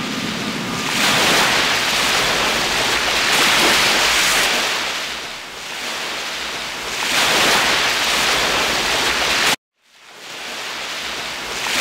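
Wind rushing over the camera microphone with the wash of choppy water, rising and falling in gusts. It cuts off suddenly near the end, and a steady hiss fades back in.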